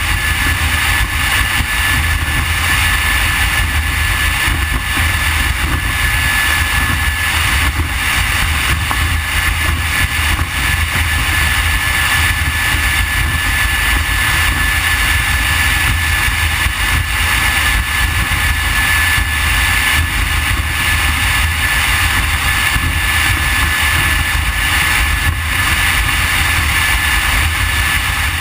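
Triple Mercury Verado 350 outboard engines on a Deep Impact 399 boat running steadily, a constant low rumble with a thin steady whine over it.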